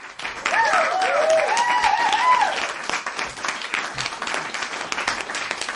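A crowd applauding with many hands clapping. Cheering voices whoop over the clapping during the first two and a half seconds.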